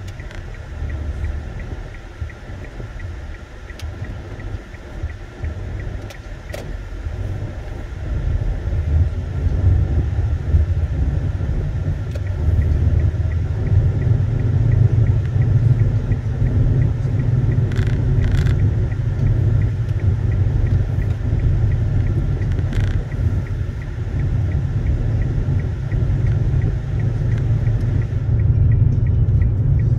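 Low, steady rumble of a car driving on a city road, heard from inside the cabin. It grows louder about ten seconds in and then holds.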